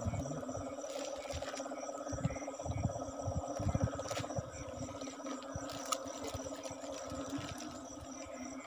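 A dense chorus of rice-field frogs calling after rain: a continuous mass of rapid, pulsing croaks, with steady high insect trills above it. Scattered low thumps from handling run through it.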